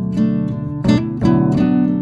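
Background music: an acoustic guitar playing plucked notes and strummed chords at a steady pace.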